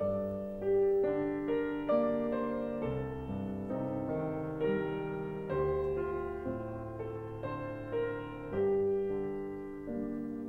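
Background piano music: a slow melody over chords, with new notes struck about every half second to a second.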